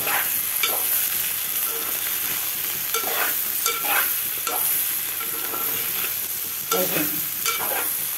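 A metal spoon stirs and scrapes ivy gourd and peanuts frying in oil in a metal pan. Under a steady sizzle, a scrape sounds every second or so, irregularly.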